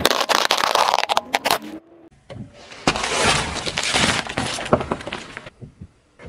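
Water-bead balls popping and crackling under a slowly rolling car tyre, a dense run of sharp cracks lasting about two seconds. After a short gap, a watermelon cracks and squashes under the tyre for about two and a half seconds, with crunching and wet splatter.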